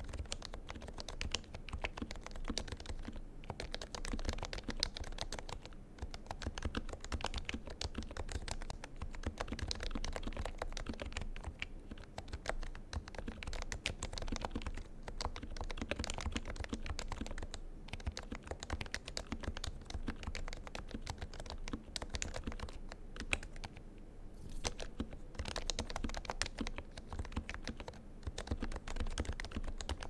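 Fast continuous typing on an HHKB Professional 2 keyboard with Topre switches lubed with Krytox 205g2 and Permatex-lubed stabilizers: a dense stream of keystrokes with a few brief pauses.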